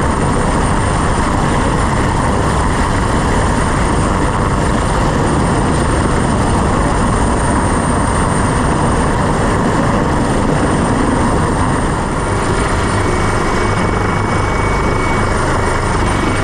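Helicopter engines and rotor running steadily and loudly, heard from inside the cabin by the open side door during a winch hoist.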